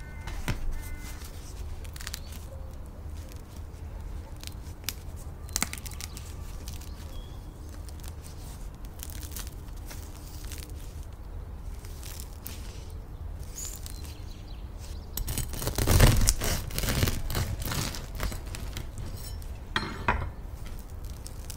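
Crusty sourdough loaf crackling and crunching as it is pressed in the hands. Scattered small crackles build to a louder run of crunching about sixteen seconds in.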